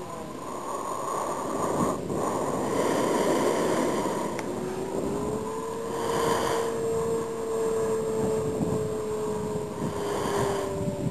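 Radio-controlled model airplane's engine droning as it flies, its tone rising a little about four seconds in and slowly sinking toward the end, under rushing wind noise on the microphone.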